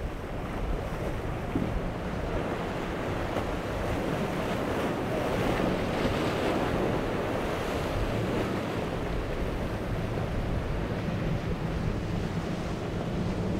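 Surf breaking and wind buffeting the microphone, with the low drone of an Intrepid's triple Yamaha 300 outboards running through the chop. The rush of water swells midway as the hull smashes through a breaking wave and throws spray, and the engine drone grows plainer near the end as the boat runs close by.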